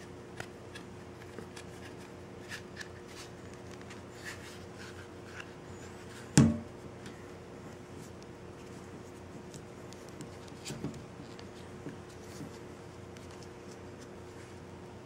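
Hands handling and pressing a plastic-and-rubber OtterBox Commuter phone case to seat it on the phone: soft rubbing and small clicks, with one louder knock about six seconds in. A faint steady hum runs underneath.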